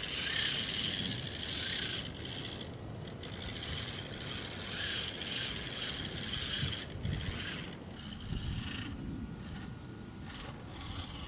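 Losi Micro Trail Trekker 1/24-scale RC crawler's small electric motor and gearbox whining in surges as the throttle comes on and off, with the tyres scrabbling over dirt and rocks. The whine fades out in the last few seconds.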